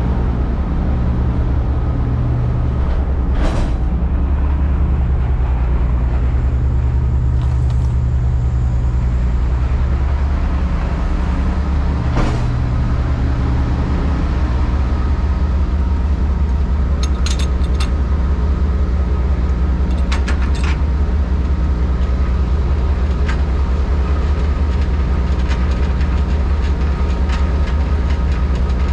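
Semi truck's diesel engine running steadily as the truck drives off, with a few faint clicks.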